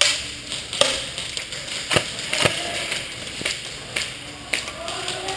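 Airsoft guns firing single shots: sharp cracks about twice a second, slightly irregular, over the arena's background din.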